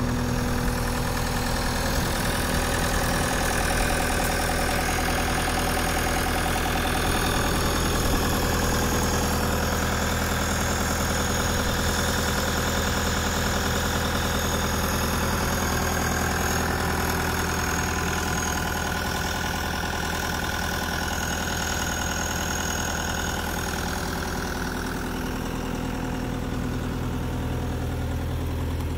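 Cat 289C compact track loader's four-cylinder diesel engine running steadily.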